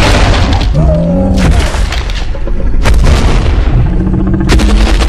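Sound-designed heavy footfalls of a giant dinosaur: deep booming impacts roughly every second and a half over a constant low rumble, with a brief low pitched tone that dips slightly about a second in.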